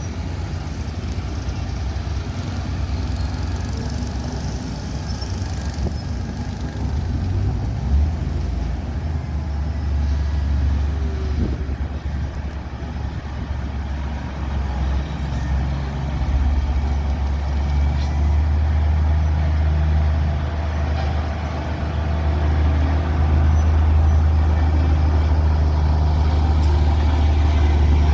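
Diesel engine of a heavy road-construction machine running with a deep, steady drone, getting louder about halfway through and again towards the end.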